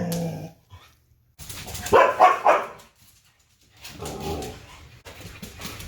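Siberian huskies 'talking': pitched, drawn-out dog vocalizing in a few separate bouts, the loudest about two seconds in and a quieter one near four seconds.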